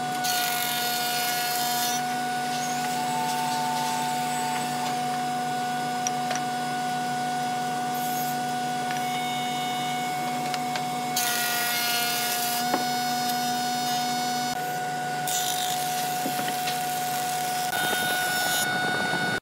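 Marunaka thickness planer running with a steady motor hum and whine. Three times, a loud hissing cut sounds as wooden boards are fed through the cutterhead.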